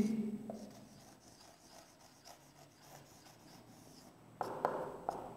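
Marker pen writing on a whiteboard: faint rubbing strokes, louder for a moment about four seconds in.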